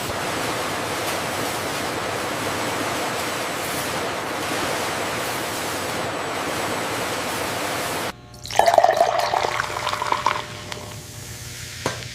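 Bottle-filling machine running, a steady rush of liquid that cuts off abruptly about eight seconds in. A brief louder burst of noise follows, then a quieter steady hum with a single click near the end.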